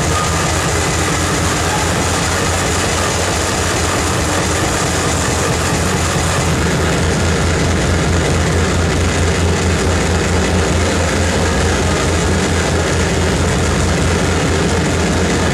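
Harsh noise from a live rig of effects pedals and mixer electronics: a loud, unbroken wall of distorted noise over a rapidly stuttering low rumble.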